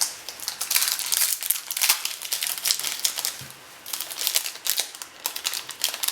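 Trading-card pack wrapper crinkling and tearing as a pack is opened, a dense run of irregular crackles.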